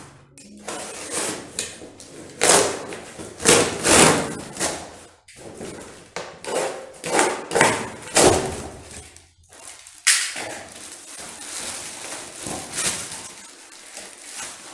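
Cardboard box of bumper plates being opened: plastic packing straps cut and pulled off and the cardboard torn and handled, a string of sharp ripping and knocking noises. From about ten seconds in, a steadier crinkling as the plastic wrap around the plate is pulled open.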